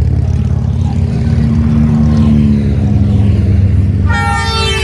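A group of motorcycles rides past on a highway, their engines making a steady, heavy low rumble. A horn toots once, briefly, near the end.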